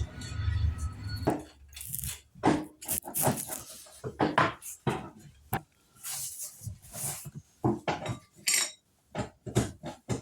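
Irregular run of short clinks, scrapes and knocks, like small containers and tools being handled and struck against each other. It follows a low rumble that stops about a second in.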